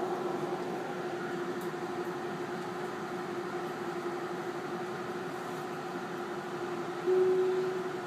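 Interior of a Tobu 50090-series electric commuter train standing at a station: a steady hum with one held tone from the car's equipment. About seven seconds in, a slightly higher, louder tone sounds briefly and fades.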